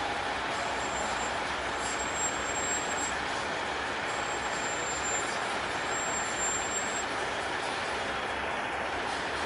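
Diesel semi trucks running as they roll slowly in a line, a steady noise with a thin high whistle that comes and goes four times in the first seven seconds.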